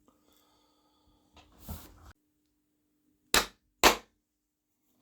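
A soldering tool being cleaned at the workbench: a brief scrape, then two sharp knocks about half a second apart.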